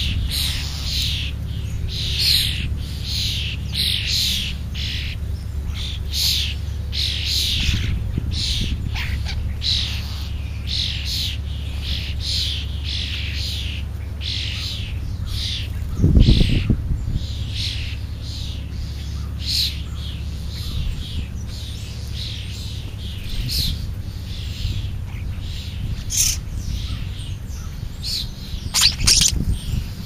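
Small birds feeding at a ground feeding pile, house sparrows and starlings, calling almost without a break: a string of short, high, downward-sweeping chirps over a steady low rumble. A loud thump comes about halfway through, and a burst of louder calls comes near the end.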